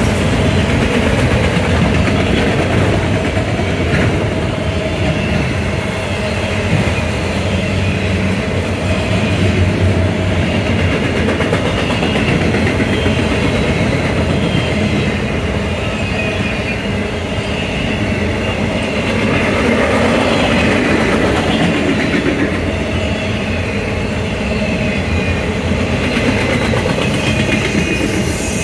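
A train's cars rolling past on steel rails, a loud steady sound of wheels on track that holds without a break.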